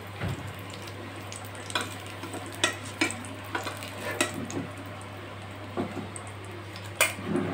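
Stuffed bitter gourd frying in oil in a nonstick pan, a faint sizzle under a steady low hum. A spatula scrapes and taps against the pan several times as the gourd is turned.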